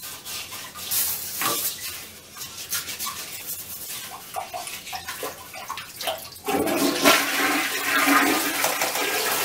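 Toilet brush scrubbing around a toilet bowl and swishing through the water in it. The swishing gets much louder and more vigorous about six and a half seconds in.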